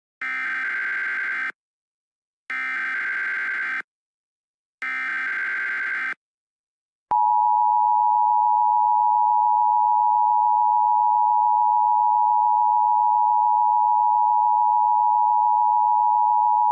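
Emergency Alert System SAME header: three identical bursts of rapid digital data screech, each a little over a second long with a short gap between. About a second later the steady two-tone EAS attention signal begins and sounds continuously, announcing an emergency alert.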